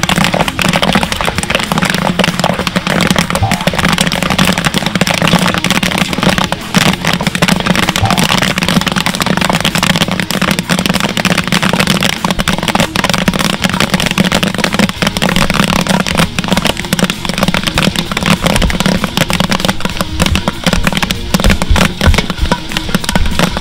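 Kettle corn popping in a steel kettle with oil and sugar: a dense, steady run of rapid pops throughout, over background music.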